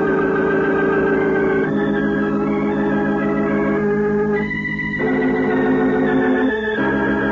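Organ music: a slow run of held chords, each sustained for a second or two before moving to the next, a radio soap opera's closing musical bridge after the cliffhanger.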